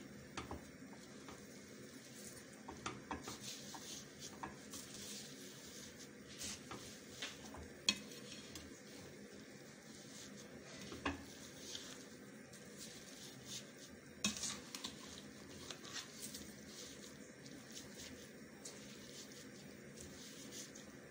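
A spoon stirring grated carrots with sugar, milk and cream in a non-stick frying pan: soft wet scraping with scattered clicks of the spoon against the pan.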